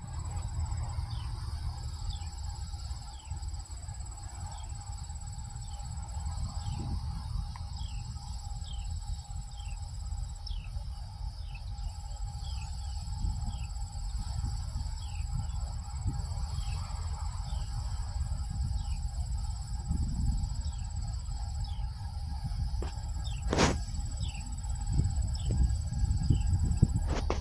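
Insects buzzing steadily in a high pitch, with short falling chirps repeating about once every second, over the low rumble of approaching Norfolk Southern diesel locomotives that grows slowly louder toward the end. There is a single sharp click about three-quarters of the way through.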